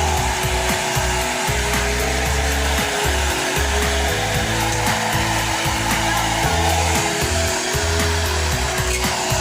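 Modern rock background music with changing bass notes, over the steady blowing of a hair dryer.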